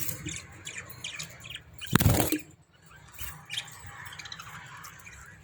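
Budgerigars chirping and squawking in short scattered calls, with one loud thump about two seconds in.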